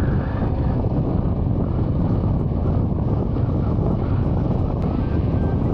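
Steady wind rush and road noise on a motorcycle rider's camera microphone while riding, with the bike's engine buried in the wind.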